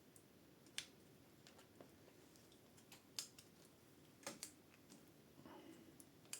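Faint, scattered sharp clicks and taps of small hand tools and parts being handled during bicycle derailleur cable work, about half a dozen over a few seconds with the loudest pair around the middle.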